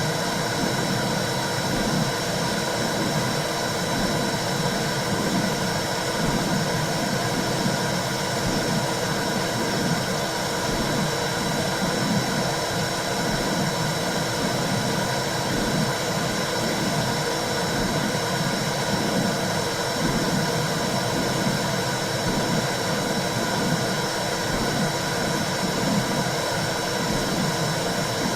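Womb sound for soothing a baby: a steady whooshing noise like white noise, with a low, rhythmic pulsing swell about once a second underneath.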